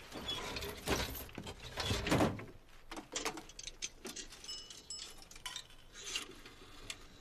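A coin payphone being used to place a call: small metallic clicks and clinks from its coin slot and dial mechanism. Two louder rattles come in the first couple of seconds, and a few brief ringing tones come about halfway through.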